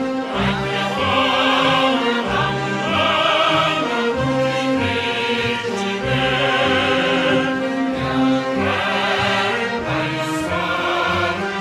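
Background music: held notes over a bass line that changes every second or so.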